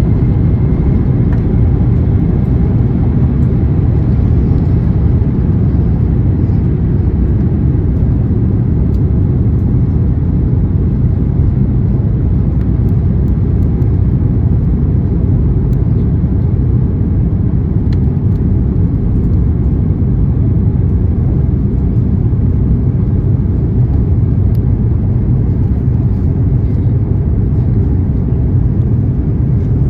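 Steady low rumble of an Airbus A350-900 heard from inside the passenger cabin: its Rolls-Royce Trent XWB engines and airflow, loud and even with no rise or fall.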